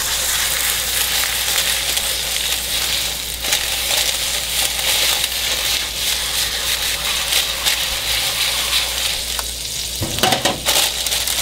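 Smash burger patty of ground beef and shredded Parmesan sizzling steadily on a hot cast iron griddle as it is pressed flat under parchment paper with a spatula and a can. A few light knocks near the end.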